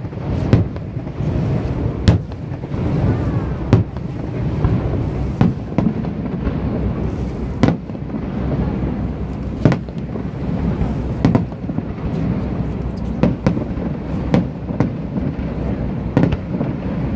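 Aerial fireworks shells bursting one after another, a sharp bang every one to two seconds over a steady low rumble.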